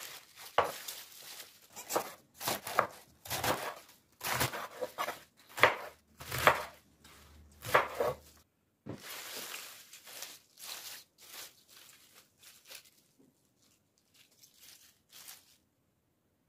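Kitchen knife chopping a raw white cabbage on a wooden table: crisp, crunchy cuts through the leaves at an uneven pace, with rustling as the loose leaves are gathered and handled. The strokes get fainter in the second half and stop about a second before the end.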